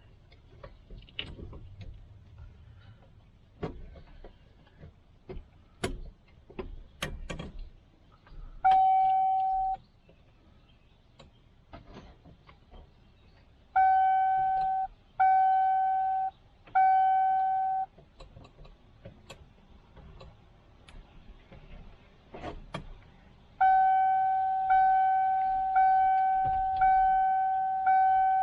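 1997 Ford F-350's dashboard warning chime dinging: one ding, then three, then a steady run of about one a second near the end, each tone sharp and fading. The chime is set off by the steering-column wiring being touched and grounded while the shifter is refitted. Before the dinging come a few light clicks and knocks of parts being handled.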